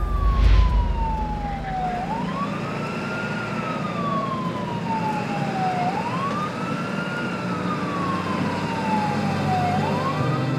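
An emergency-vehicle siren wailing, its pitch sliding slowly down and sweeping quickly back up about every four seconds, over a low rumble. A deep thump sounds about half a second in.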